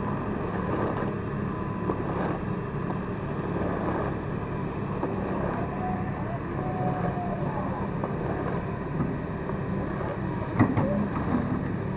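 Hyundai wheeled excavator's diesel engine running steadily under load as it slews and lifts its boom and bucket. A whine rises and falls around the middle, and a sharp knock comes near the end.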